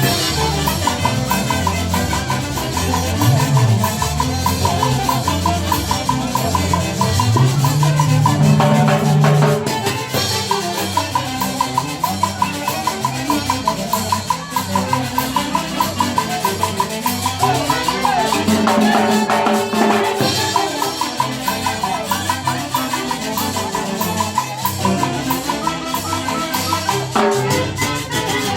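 Live band music from an Andean orchestra, with a bass line under a steady, evenly repeating percussion beat.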